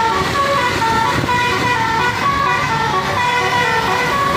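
Bus basuri horn, a multi-note musical air horn, playing a freestyle tune: a quick run of held notes stepping up and down in pitch, each lasting a fraction of a second.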